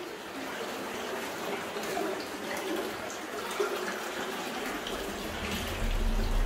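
Running water of an underground stream, flowing steadily after fading in over the first second or so; a low rumble joins about five seconds in.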